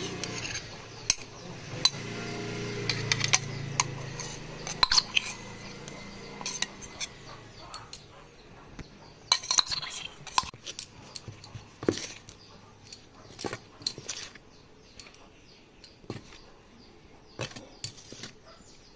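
A metal spoon clinks and scrapes against a stainless-steel tumbler and bowl, scooping out chopped greens and stirring them into flour, in irregular sharp clinks.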